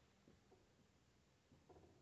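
Near silence: room tone with a few faint strokes of a dry-erase marker on a whiteboard, a short scratchy stroke about a second and a half in.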